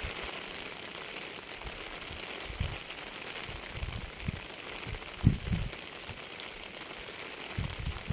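Rain falling steadily, with scattered heavier drops landing as low, irregular thuds, the loudest about five seconds in.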